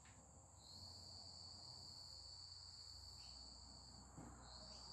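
Near silence with faint, steady high-pitched chirring of insects; one strand of it drops out briefly a little before the end.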